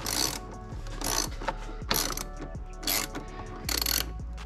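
Ratchet wrench being worked in short clicking strokes, about one a second, loosening the intake's hose clamps.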